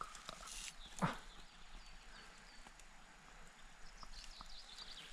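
Faint footsteps crunching through dry fallen leaves and twigs, with one louder crunch about a second in. A small bird calls a few short high notes in the background.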